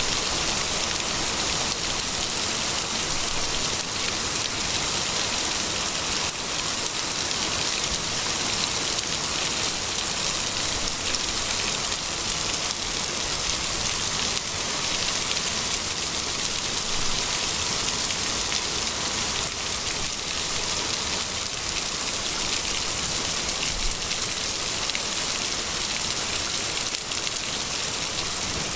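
Heavy downpour: a steady, even hiss of rain pouring onto the road, pavement and grass, with scattered drop impacts.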